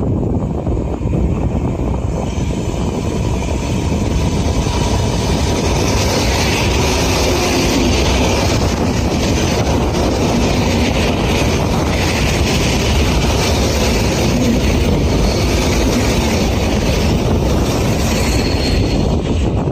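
SKM blue-and-yellow electric multiple unit commuter train approaching and running close past on the tracks, its wheels rumbling on the rails. It grows louder over the first few seconds and stays loud as the carriages go by.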